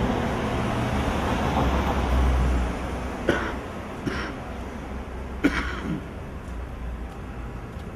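A car drives past close by, its engine and tyre noise swelling and then fading over the first three seconds. Then come four short, sharp sounds between about three and six seconds in, the second-last the loudest.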